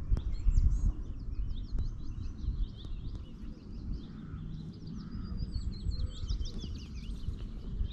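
Songbirds chirping and singing in quick, repeated short calls, over an uneven low rumble like wind on the microphone.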